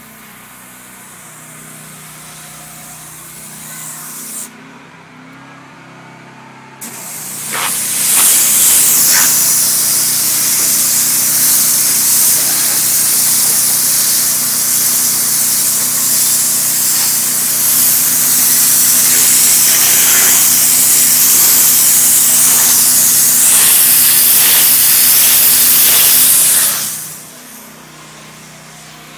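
A compressor running with a steady low hum, joined for most of the middle by a loud, even hissing jet from the working nozzle that drowns the hum out, then cuts off near the end.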